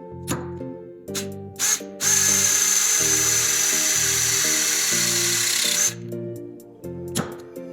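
Power tool motor running in short bursts, then steadily for about four seconds with a high whine, over background music.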